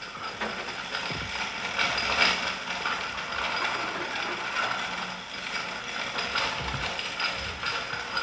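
Continuous rapid mechanical clicking and rattling of the hoisting gear used to take the church bells down from the tower.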